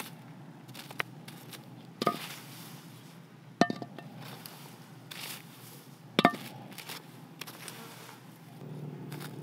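A stick raking and scraping ash around a metal pot buried in embers, knocking against the pot three times, each knock with a short metallic ring.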